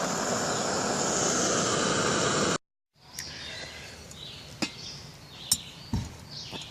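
A steady rushing hiss that cuts off abruptly. After a moment of silence comes quieter outdoor ambience with a few light clicks and faint high chirps.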